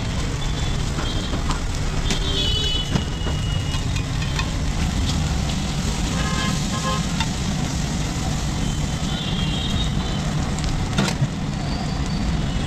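Road traffic rumble with vehicle horns sounding several times. Underneath is sizzling from an omelette, kebabs and kulcha cooking on a hot flat iron tawa, and there are a couple of sharp clacks.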